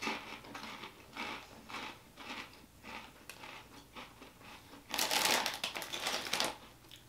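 Crunchy cauliflower potato chips being chewed, a run of small crackling crunches. About five seconds in, the plastic chip bag is handled and crinkles loudly for a second and a half.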